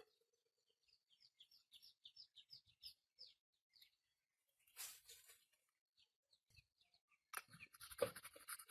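A bird chirping faintly: a quick run of short, high chirps, about four a second, for a few seconds. A brief hiss around the middle, then a cluster of sharp clicks and knocks near the end.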